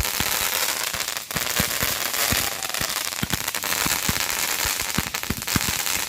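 Consumer fireworks going off: a dense, continuous crackle with many sharp pops and a few deeper thumps.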